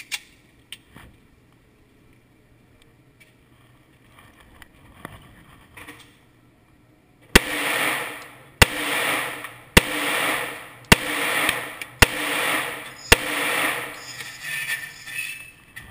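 Semi-automatic handgun fired six times at a steady pace of about one shot a second, each shot echoing in an indoor range booth. A few faint clicks of handling come before the shots.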